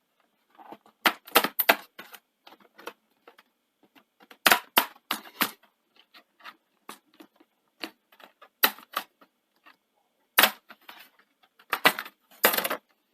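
Plastic base cover of a Dell Vostro 3501 laptop being unclipped and prised off: a run of sharp clicks and snaps coming in clusters as its retaining clips let go.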